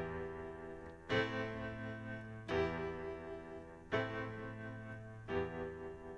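Background music of slow keyboard chords, a new chord struck about every second and a half and left to ring and fade.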